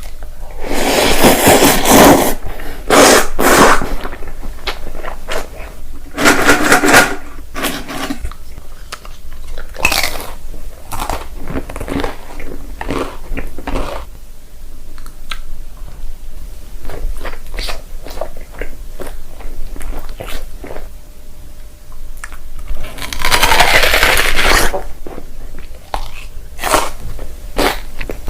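Crunchy food being bitten and chewed close to the microphone. Loud crunching bites come about a second in, again around three and seven seconds in, and in a longer spell near the end, with steady chewing crackle in between.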